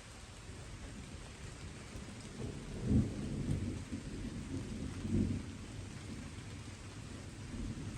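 Steady light rain with a roll of distant thunder. The thunder starts a little over two seconds in, rumbles low with two swells, and fades out.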